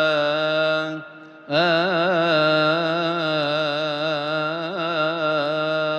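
A solo male voice chanting in Coptic liturgical style, the deacon's chanted introduction to the Gospel reading. He draws one syllable out into a long melismatic line, its pitch wavering up and down, breaks for a breath about a second in, then holds the next phrase.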